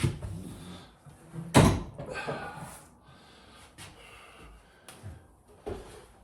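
A loud thump about one and a half seconds in, with a few lighter knocks and clicks, from parts being handled and knocked while fitting a bath's waste fittings.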